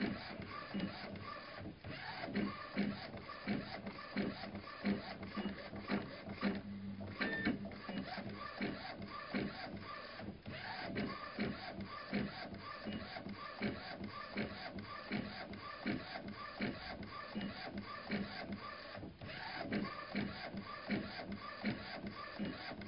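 Golf ball printing machine running: a steady, repeating mechanical clatter of clicks and knocks with short tonal whirs, going on without a break.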